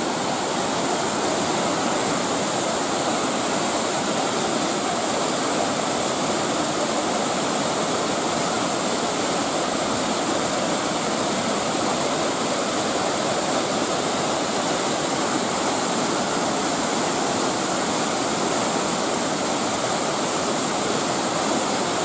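Shirahige Falls, many streams of water spilling down a rock face into a river: a steady rush of falling water.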